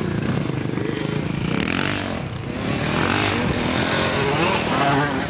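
Small off-road engines of a quad ATV and a dirt bike revving, the pitch rising and falling over and over as the riders throttle up and back off.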